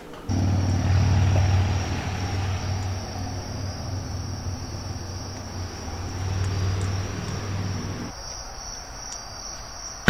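A car engine running with a low, pulsing rumble that fades away after about eight seconds, over a steady high trill of crickets.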